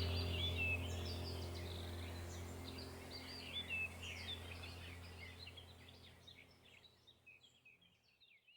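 Birds chirping, many short high calls, over a steady low drone; both fade out gradually and are almost gone near the end.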